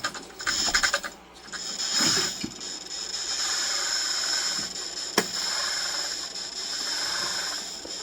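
Hydraulic pump of a 1/14 Double E Volvo EC160E RC excavator whining steadily as the boom hydraulics are worked, after a rattly first second. One sharp click about five seconds in.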